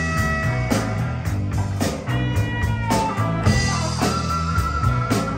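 Live band playing: electric guitars over drums, with sustained guitar notes and a steady beat of drum hits.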